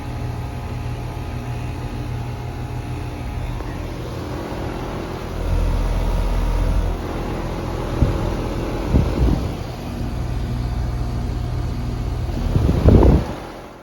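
Payne heat pump outdoor unit running in cooling mode: a steady compressor hum and condenser fan airflow, now running without freezing up after repair. Louder low rumbles come through about halfway and again near the end.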